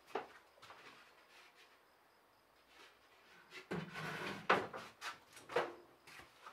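Irregular knocks and clatters, a few faint ones at first, then denser and louder from about halfway through, the sharpest a little after four seconds in.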